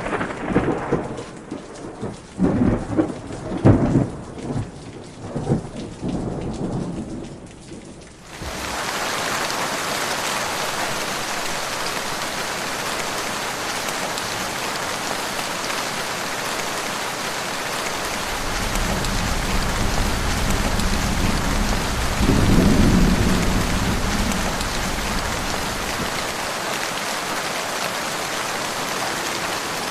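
Thunderstorm: several rolling thunder peals over rain, then about eight seconds in an abrupt switch to steady heavy rain hissing. Low thunder rumbles in again about halfway through and swells briefly a few seconds later.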